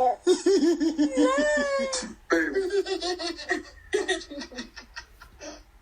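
High-pitched laughter in quick pulsing giggles, in two long bouts, fading into a few short bits near the end.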